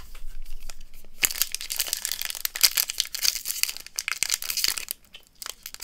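Crinkling of a foil booster pack wrapper being handled and opened, a dense crackle that eases briefly near the end.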